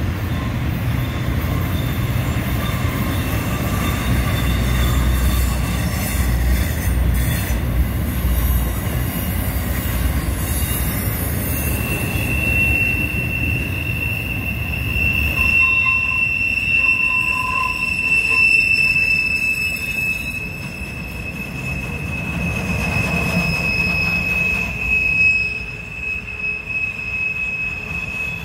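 Intermodal freight cars carrying trailers and containers rolling past: a heavy rumble of wheels on rail, then from about twelve seconds in a steady high-pitched wheel squeal that holds to the end. The squeal is flange squeal from the wheels grinding against the rail on a tight curve.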